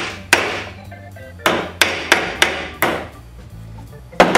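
Ball-peen hammer striking scrap sheet metal clamped in a bench vise, about seven sharp blows with brief ringing, hand-forming a tight 90-degree bend. The blows come in an uneven run, quicker in the middle, with a pause before one last hard hit near the end.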